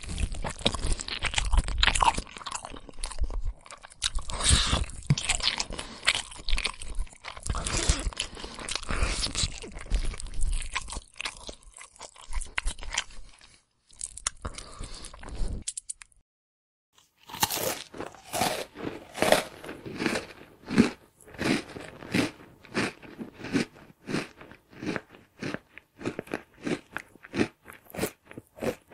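Eating sound effects: loud, dense crunching of something crisp being bitten and chewed, stopping about 16 seconds in; after a brief pause, a second clip of steady rhythmic chewing crunches, about two a second.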